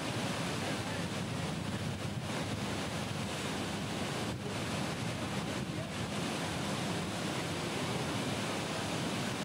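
Steady rushing noise with no pitch or rhythm, even throughout.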